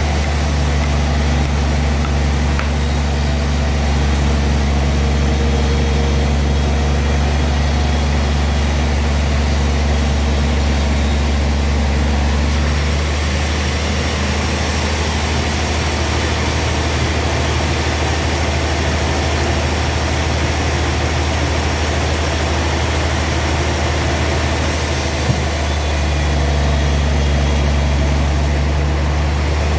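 Sawmill machinery running steadily with a heavy low hum. Its upper tones drop away about 13 seconds in and return around 26 seconds.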